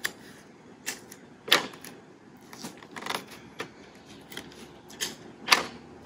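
Paper lunch bags crinkling as strips of clear tape are torn off and pressed down over their flaps: several short, sharp crinkles and snaps at uneven intervals.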